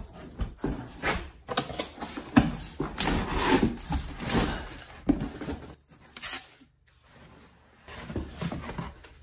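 Cardboard flaps of a large shipping box being pulled open and folded back, rustling and scraping in irregular bursts, with a lull about six seconds in.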